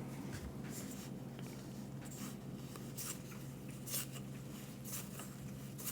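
Trading cards being flipped through by hand: soft slides and flicks of card against card about once a second, over a faint steady low hum.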